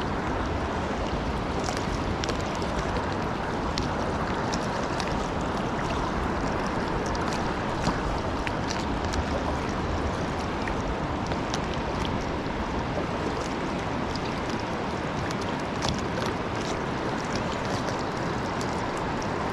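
River water rushing steadily around a kayak, with small scattered ticks and splashes.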